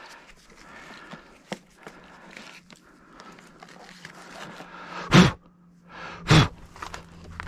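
Light clicks and knocks from hands-on work, then two short, loud bursts of noise about a second apart over a low steady hum that starts shortly before them.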